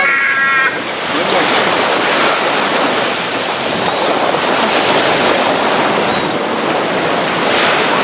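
Steady wash of sea surf on the beach, mixed with wind buffeting the microphone.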